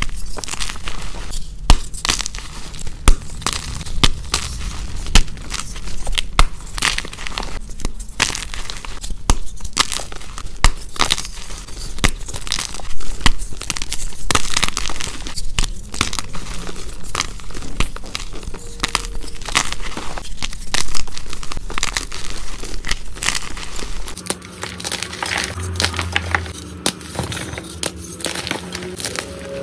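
Blocks of dyed gym chalk crushed and crumbled in the hands, played sped up: a dense, crisp run of crunches, snaps and crackles with powder squeaking. About three-quarters of the way in the crunching turns quieter and softer as another batch of chalk is crumbled.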